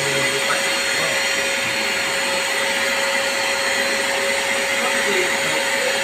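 Wet/dry shop vacuum running steadily with one constant hum, its hose sucking at the clogged drain pipe of a split-type air conditioner to clear it.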